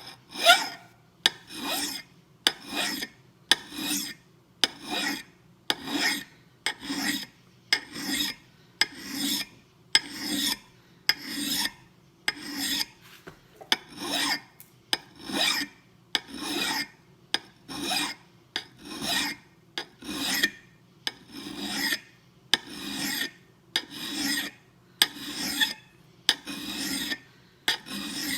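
Smooth hand file scraping across a steel axe bit in steady push strokes, about one a second, filing a secondary micro bevel onto the edge.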